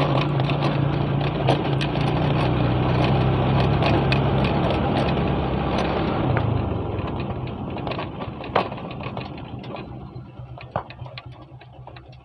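Motorcycle engine running at low speed on a rough dirt track, with wind and road noise and scattered knocks and rattles from the bumpy ground. About halfway through the engine note drops away and fades as the bike slows down.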